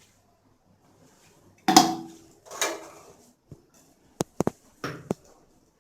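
A metal cooking pan clanks twice against the stove, the first knock with a short ring, then a quick run of five sharp clicks near the end.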